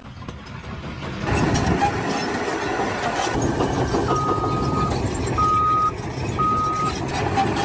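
A heavy vehicle's engine running, with a reversing alarm beeping three times at one steady pitch, about a second apart, from about halfway through.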